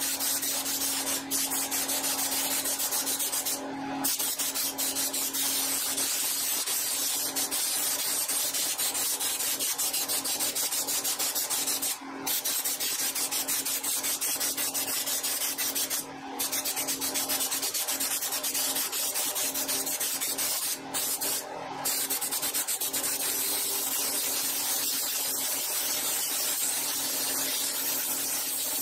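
Air-powered applicator gun spraying Raptor bed liner as a texture coat: a loud, rough, spattering hiss that stops briefly about six times as the trigger is let off and squeezed again.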